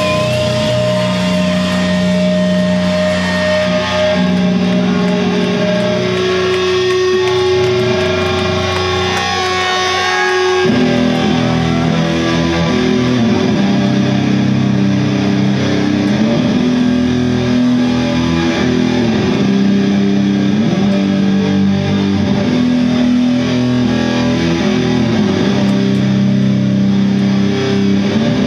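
Doom metal band playing live: slow electric guitars holding long sustained low chords, moving to a new riff about ten seconds in.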